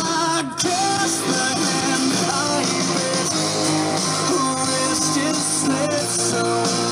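Sharkk Bluetooth 4.0 portable boombox speaker playing guitar music with singing at its maximum volume, very loud.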